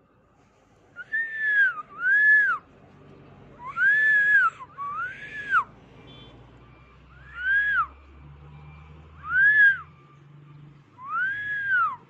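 Cockatiel calling: seven whistled contact calls, each rising then falling in pitch, mostly coming in pairs with short pauses between.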